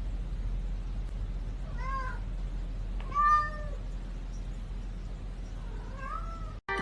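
Domestic cat meowing three times, the middle meow the loudest and longest, over a steady low hum.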